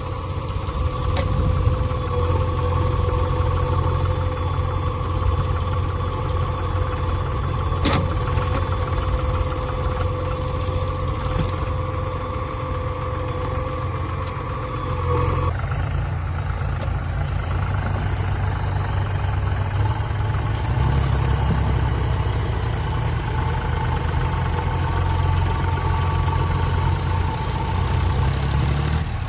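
Heavy diesel machinery engine running steadily, with a steady whine over it that drops and shifts in pitch about halfway through. There is a single sharp click about eight seconds in.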